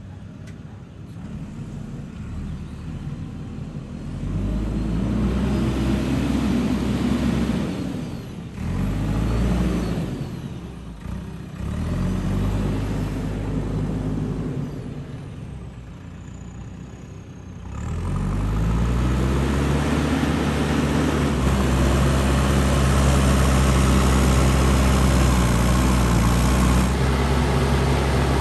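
JCB 3DX backhoe loader's diesel engine revving up and dropping back several times. From about two-thirds of the way through it holds at high revs.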